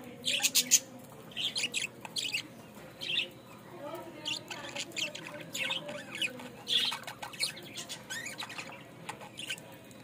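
A flock of caged budgerigars chirping and chattering, with quick high chirps coming in clusters over a softer running warble.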